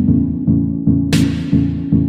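Electronic music with a steady pulsing beat, about three pulses a second, and a cymbal-like crash about a second in.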